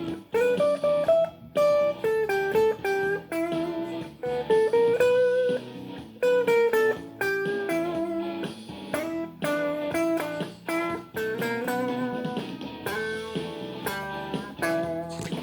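Guitar playing a blues line: a run of plucked single notes, some bent up in pitch, over steady low notes underneath.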